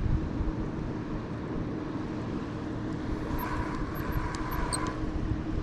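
Wind buffeting the microphone, with a faint steady low hum underneath. From about three seconds in, a Shimano Sahara 5000 spinning reel is cranked for a couple of seconds, a soft gear whir with a few light ticks.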